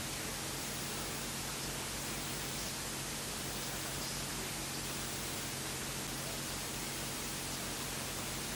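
Steady hiss of static at a constant level, with a faint low hum underneath.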